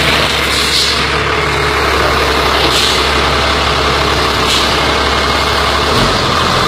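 Large custom pickup truck's engine running at a steady idle, with a few short hisses coming through a couple of seconds apart.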